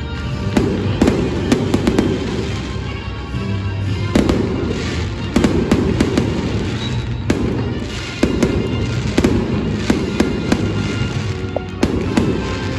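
Fireworks going off: rapid sharp cracks and pops in repeated clusters over a steady low rumble.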